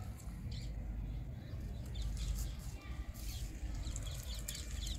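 Faint rustling of leaves as a hand moves through the foliage of a potted sweet lemon plant, in short scattered rustles, over a low steady rumble of wind on the microphone.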